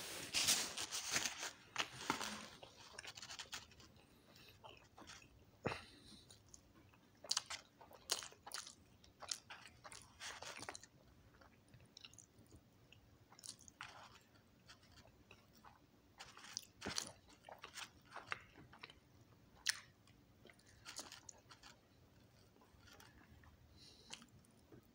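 A person chewing and biting food close to the microphone: irregular short crunches, densest and loudest in the first few seconds, with quieter chewing between them.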